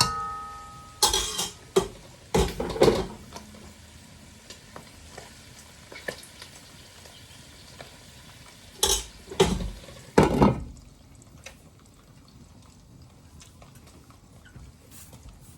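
Chicken gizzards sizzling as they fry in hot oil, with a utensil scraping and knocking against the pan in bursts about a second in, around three seconds in and again around nine to ten seconds. The sizzle thins out after about ten seconds.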